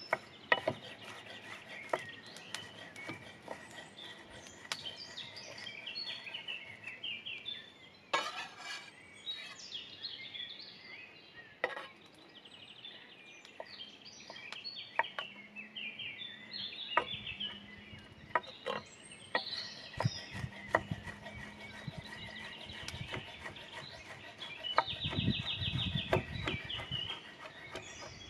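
A chef's knife chopping ham on a wooden end-grain cutting board: uneven runs of sharp taps as the blade strikes the board. Birds chirp and sing throughout, and a low rumble swells near the end.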